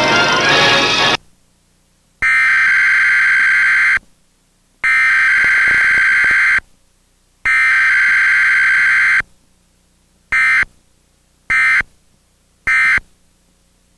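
Emergency Alert System test data tones: the SAME header burst is sent three times, each just under two seconds long with a pause between, then three short end-of-message bursts. There is no long attention tone and no voice message, the pattern of a required weekly test. A little music ends about a second in.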